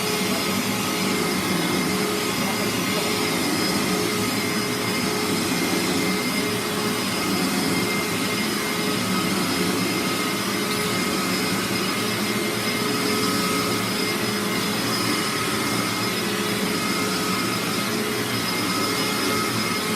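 Hoover SpinScrub carpet cleaner's suction motor running steadily: a continuous rush of air with a constant whine. It is running with no water coming through, as the user feels.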